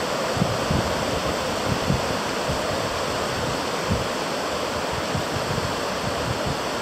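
South Fork Eel River in flood, fast high water rushing steadily, with wind buffeting the microphone in low gusts.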